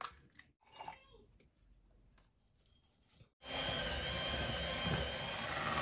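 Electric hand mixer beating butter in a glass bowl: it switches on about three and a half seconds in and runs steadily with a high whine. Before that, faint clicks and knocks of the bowl and butter being handled.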